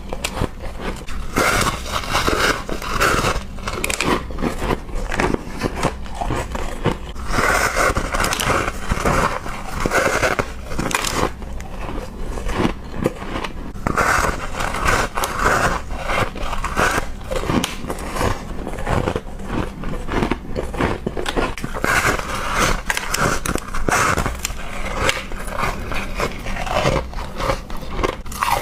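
Ice being bitten and crunched between the teeth close to the microphone: a dense run of sharp cracks and crunches, with heavier stretches of crunching about every six or seven seconds.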